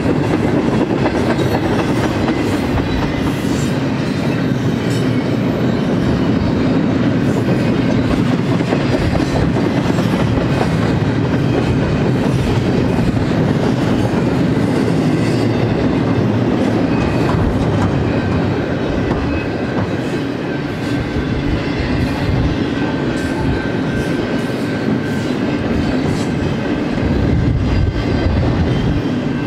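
BNSF double-stack container train rolling past at speed: a steady rumble of steel wheels on the rail with a run of clicking, and a thin high whine joining in midway. The last well car passes near the end.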